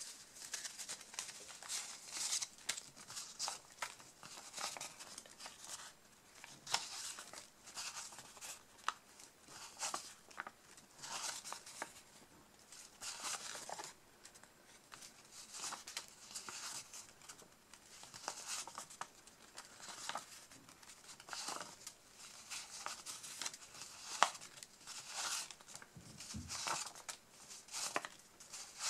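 A stack of 100-euro banknotes being counted by hand: a long run of short, crisp paper rustles and flicks as note after note is peeled off the stack.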